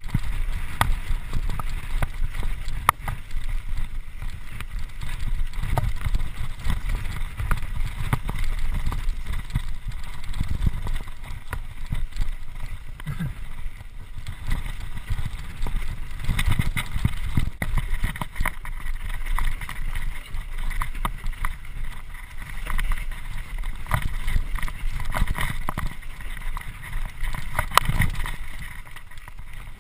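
Mountain bike riding fast down rough singletrack: wind buffeting the camera microphone as a steady rumble, with frequent sharp knocks and rattles of the bike over the bumps.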